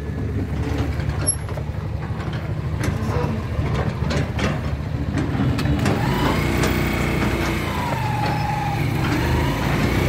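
A truck engine running steadily at idle, a continuous low hum.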